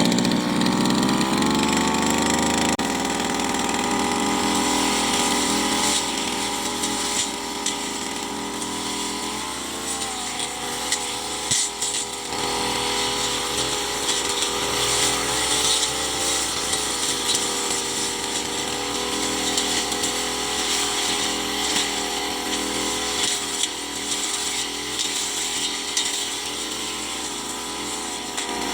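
Petrol brush cutter engine running at high speed while cutting grass and brush, its pitch wavering slightly as the load changes.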